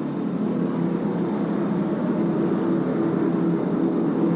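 Stock car engines running as race cars pass on the track, a steady droning hum that grows slightly louder, heard through an old low-fidelity film soundtrack.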